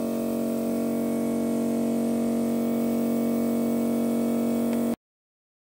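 Air-threading system of a Bernina L890 serger running: a steady pitched hum with a hiss as the air blows a looped thread through the looper tube. It stops abruptly about five seconds in.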